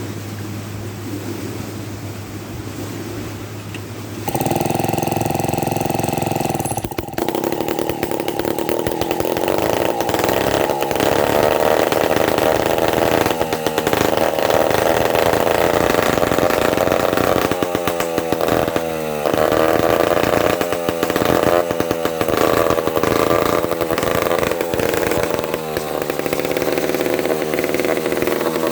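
1951 Lombard Wizard two-stroke chainsaw engine running and being revved, its pitch rising and falling again and again. It grows much louder about four seconds in.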